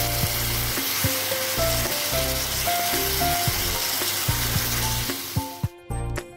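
Spiced potato cubes sizzling in hot oil in a kadai, a little water just added to loosen the stuck masala, while a spatula stirs them. The sizzle cuts off suddenly near the end.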